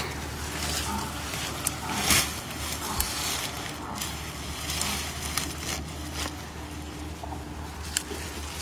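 Rustling and crackling of leafy radish tops as bunches of freshly pulled radishes are handled, laid into a wicker basket, and another radish is pulled from the soil.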